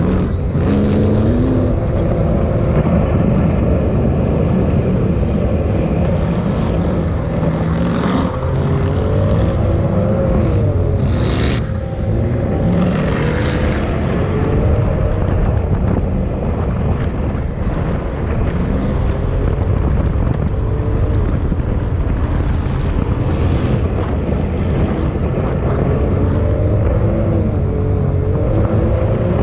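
Side-by-side off-road vehicle's engine heard from on board, its pitch rising and falling as the throttle is worked over the dunes. A few brief gusts of wind hit the microphone.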